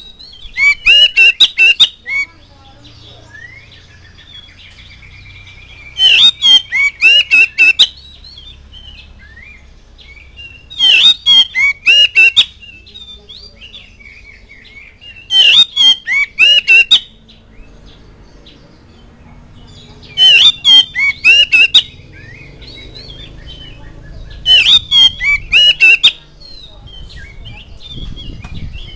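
Oriental magpie-robin (kacer) singing: six loud phrases of quick, repeated whistled notes, each under two seconds, coming every four to five seconds, with quieter pauses between.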